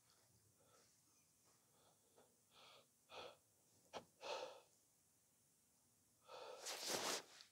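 A person breathing close to the microphone: a few short breaths or sniffs, with a sharp click about four seconds in and the loudest breath near the end.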